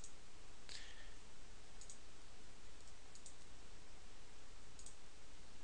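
A few scattered clicks of a computer mouse over a steady background hiss.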